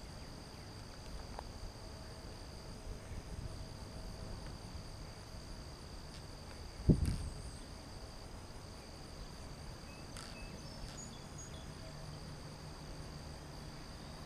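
Steady chorus of insects, crickets, with one brief low thump about seven seconds in.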